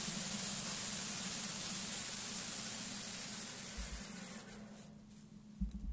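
Bandsaw mill driven by a 13 HP, 420cc Harbor Freight gasoline engine, running steadily while the band blade cuts through a log: a steady hum under a loud hiss. It fades out from about three seconds in, with a short low thump near the end.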